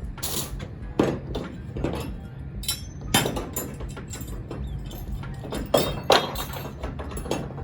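Metal clanks and knocks from a crowbar prying loose the clamps that hold cargo to a truck's floor, with a few sharp strikes that ring briefly, over a steady low hum.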